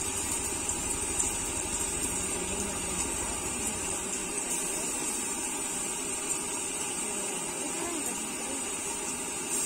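Gas wok burner fed from an LPG cylinder burning with a steady hiss while an egg fries and sizzles in the wok. A low rumble underneath fades about four seconds in.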